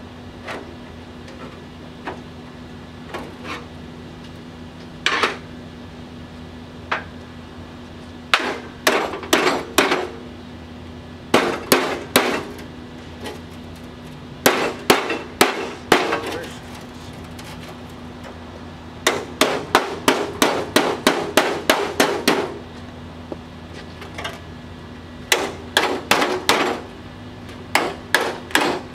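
Hammer blows on a rusted steel car body section held in a vise, in bursts of several ringing metallic strikes, about three or four a second, with pauses between bursts. A steady low hum runs underneath.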